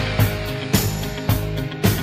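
Background music with a steady beat, about two beats a second, over sustained instrumental tones.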